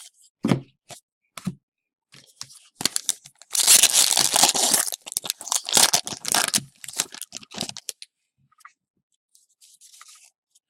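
A 2016-17 Upper Deck SP Authentic hockey card pack being torn open: a few short crackles, then a long loud rip of the wrapper from about three and a half seconds in, followed by more ripping and crinkling that dies away near the end.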